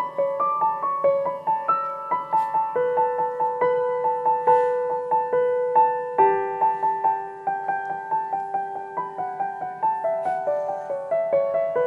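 Background music: solo piano playing a melody of ringing notes in a steady pulse.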